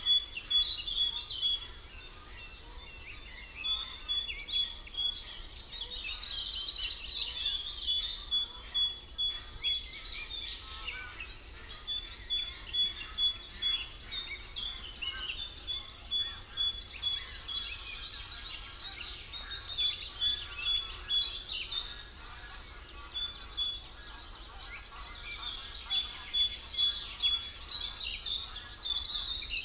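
Several songbirds singing at once: fast chattering song overlapping a repeated phrase of clear, steady notes on two pitches. The song drops away briefly twice.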